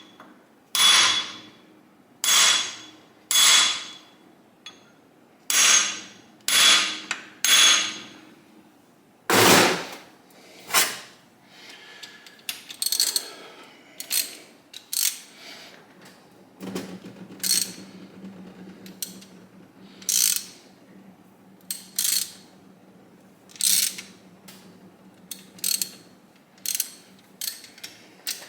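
Repeated hammer blows on metal, each a sharp strike with a short ring, struck about every second or two to shock a stuck crankcase bolt loose on a Kawasaki KZ1000 engine. A steady low hum joins about halfway through.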